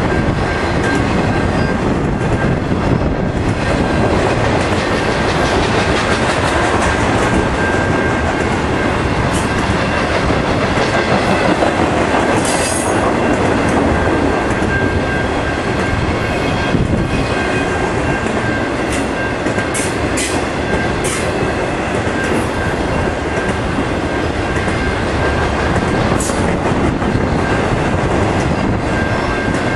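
Intermodal freight train of truck trailers on flatcars rolling steadily past at close range: continuous loud rumble of steel wheels on rail, with a faint steady ring and a few brief high squeaks now and then.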